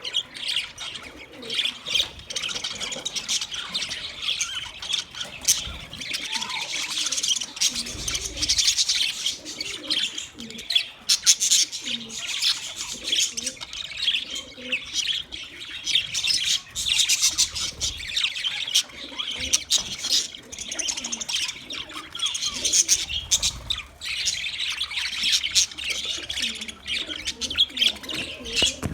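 A flock of budgies chirping and chattering continuously, with many overlapping warbles, tweets and short squawks, and occasional low thumps.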